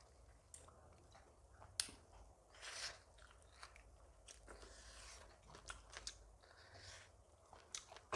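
Faint close-miked chewing and eating: soft wet mouth clicks and smacks, with a sharp click just under two seconds in and a longer crunchy bite near three seconds.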